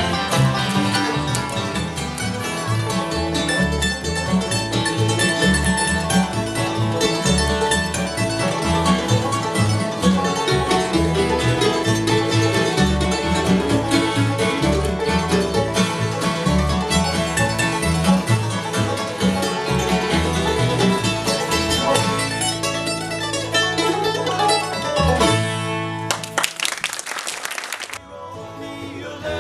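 Bluegrass band playing an instrumental passage, with banjo picking out front over guitar. Near the end the music breaks off into a brief rasping noise, followed by a quieter moment.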